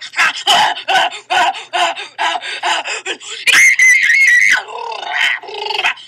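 Women's voices making silly vocal noises: a quick string of short yelps and grunts, then a loud, high-pitched held scream for about a second past the halfway mark, trailing off into lower noises.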